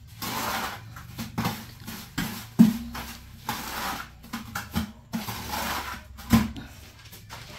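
Mortar being worked in a plastic bucket: rough scraping strokes alternating with irregular sharp knocks against the bucket, the loudest knocks about two and a half seconds in and near the end.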